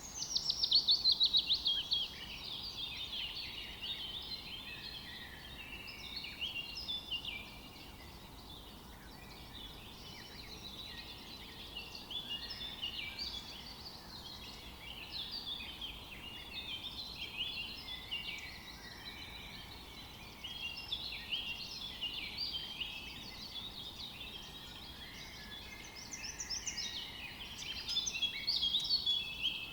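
Birds chirping and calling, many short high notes overlapping throughout. A louder quick run of repeated notes comes at the start and again near the end.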